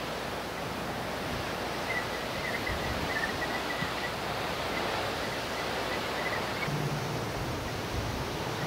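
Storm wind blowing through grass and weeds, a steady rustling hiss of wind noise without pauses.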